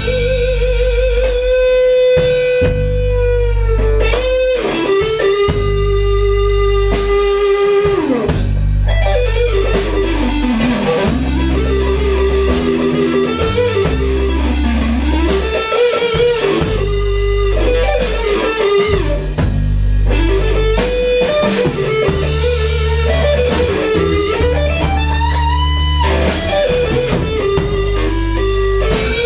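Rock band playing an instrumental passage: a lead electric guitar holds long notes and bends them up and down, over bass and drum kit.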